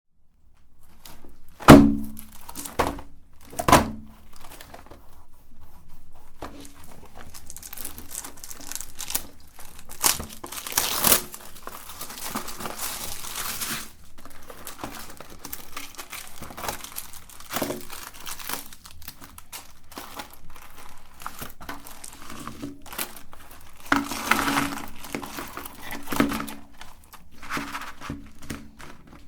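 Plastic candy wrappers crinkling and tearing as packets of jelly candy are handled and opened, with two sharp thunks in the first few seconds.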